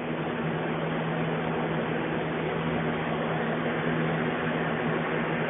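Steady hiss with a low, even hum, like a fan or machinery running constantly.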